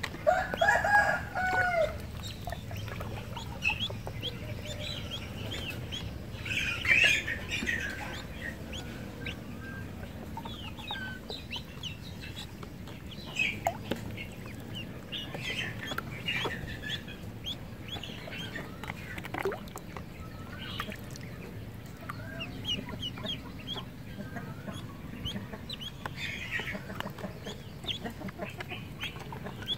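A group of ducklings peeping, with many short, high chirps throughout and a louder, lower call about a second in.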